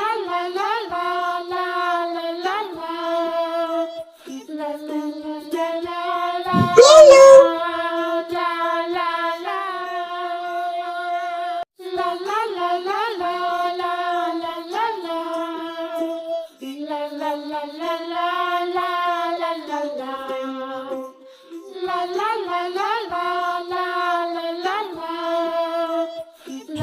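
A children's song: a child-like voice singing a melody in held notes and short phrases. About seven seconds in, a brief, very loud rising squeal cuts across it.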